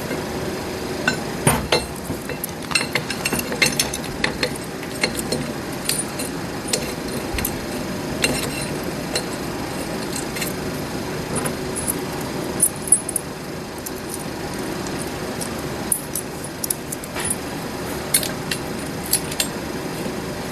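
Steel bolts with lock washers being started and turned into the aluminum housing on the back of a Super T10 four-speed transmission to mount a shifter bracket: irregular metallic clinks and ticks of bolts, washers and hand tools, over a steady low hum.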